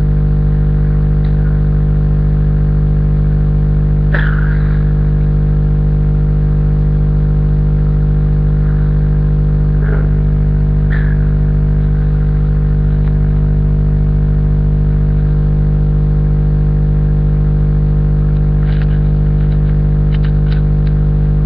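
Loud steady electrical-sounding hum with a buzzing edge, unchanging throughout, with a few faint clicks or rustles now and then.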